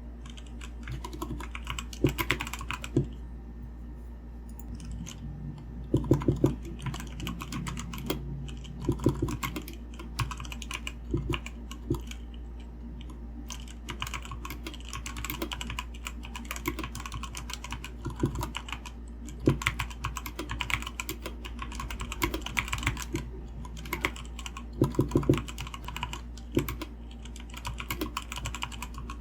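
Continuous fast typing on a Redragon Fizz 60% mechanical keyboard: a dense, uneven patter of keystrokes, with louder clusters of strokes now and then.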